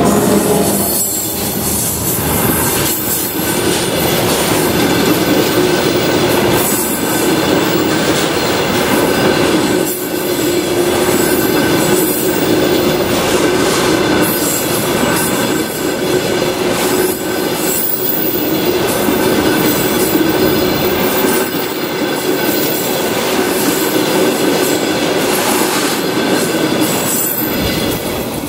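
A diesel-hauled work train rolling past close by: steady wheel and rail noise with a held tone, and sharp clicks as wheels cross rail joints every second or two. It fades out at the very end.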